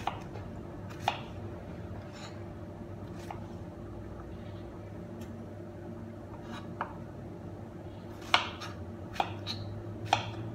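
Kitchen knife cutting fruit against a cutting board: about ten short, sharp taps at irregular spacing, coming closer together near the end, over a steady low hum.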